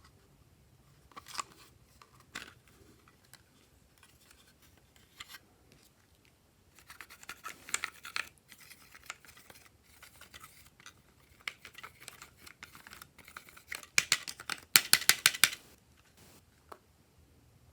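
Glossy slime being handled and mixed by hand, giving sticky clicks and crackles in bursts. The loudest part is a quick run of sharp clicks near the end.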